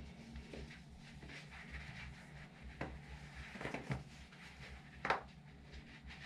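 Low steady room hum with a few faint short knocks and rustles; the sharpest comes about five seconds in.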